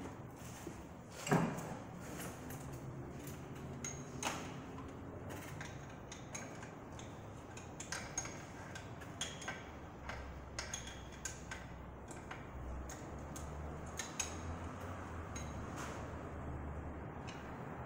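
Scattered small metallic clicks and taps of hand tools and parts being handled on a Chevrolet big-block engine with the engine off, during work to change its distributor. A louder knock comes about a second in, and the clicks bunch up through the middle.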